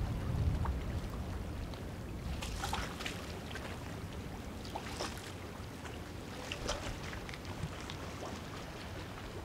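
Seafront outdoor ambience: wind rumbling on the microphone over the wash of harbour water, with a few brief sharp sounds scattered through it.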